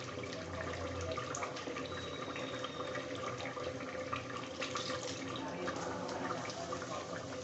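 Mutton simmering in its liquid and fat in an open aluminium pressure cooker, bubbling with many small pops and crackles over a faint steady hum.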